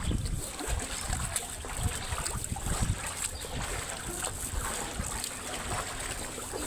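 Wind buffeting the microphone in uneven low gusts over a steady hiss of rainstorm and running floodwater.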